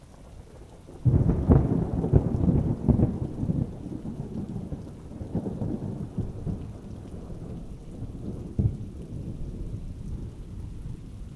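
A thunderclap over steady rain: it breaks suddenly about a second in, then rumbles on and slowly fades, with a second, shorter crack late on.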